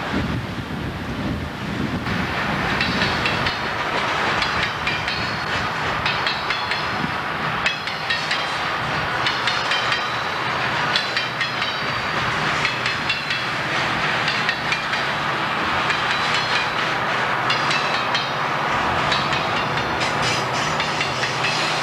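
Heavy freight train rolling past, a steady rumble with wheels clicking over rail joints and frequent short, high metallic squeals and rings from the wheels and cars.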